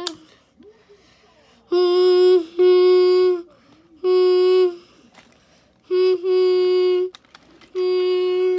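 A person mimicking a train horn with their voice, giving about five hoots on one unchanging pitch. Each hoot lasts under a second, with short quiet gaps between them.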